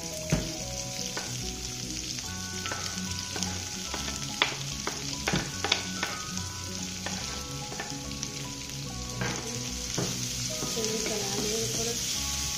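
Chopped onions sizzling in hot oil in a steel kadhai, with a few sharp clicks against the pan around the middle and a spatula stirring them near the end.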